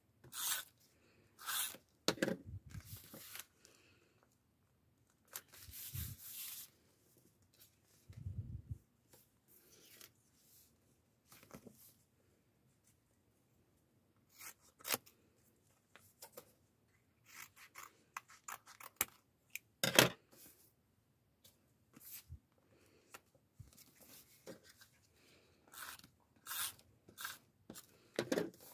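Scissors snipping through a printed photo, with paper rustling and being rubbed flat against a journal page in short, scattered strokes. One sharp click about two-thirds of the way through is the loudest sound.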